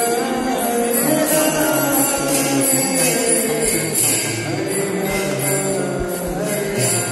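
Temple kirtan: voices singing a devotional chant, with small hand cymbals ringing along.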